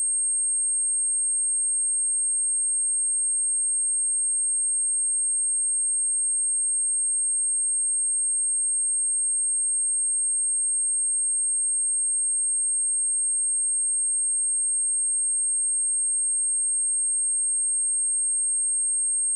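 A pure 8508 Hz sine-wave test tone, one high steady pitch held without change, as used to test speakers and headphones or to clear water and dust from a phone speaker.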